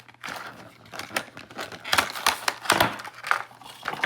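A product package being opened by hand: a run of irregular crackles, clicks and small knocks as the packaging is pulled apart and the contents handled.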